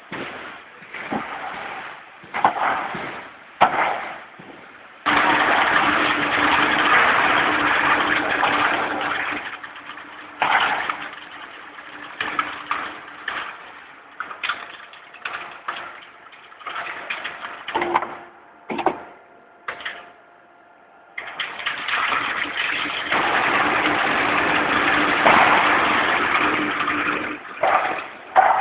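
Roll forming machine for light-steel hollow profiles running in two stretches of several seconds each, a loud noisy rush with a steady hum under it, with sharp clanks and knocks in between.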